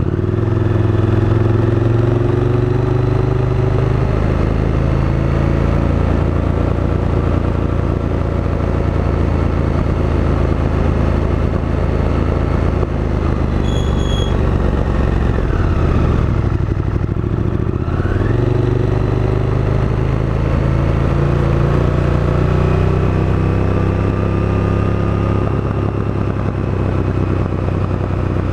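KTM 1290 Super Duke GT's V-twin engine running steadily under way. About halfway through the revs drop away for a couple of seconds, then climb back up as the throttle is opened again.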